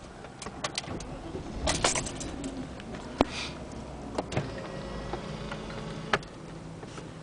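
Key turning and jiggling in the worn ignition switch of a 1998 BMW 740i: the keys on the ring jangle and the switch clicks several times, with one sharp click about three seconds in. A low hum comes on about two seconds in and stops at a click near six seconds. The owner takes the switch for faulty, cutting power in its first position.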